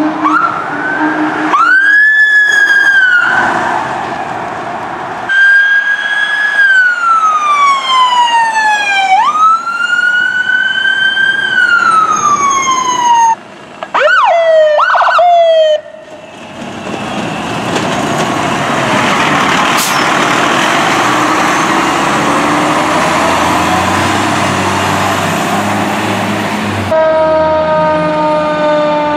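Fire truck sirens responding: electronic sirens wailing in long rising and falling sweeps, then switching to fast yelps. About halfway through a loud rumbling roar of a passing truck takes over, and near the end a steady blaring horn-like tone sounds.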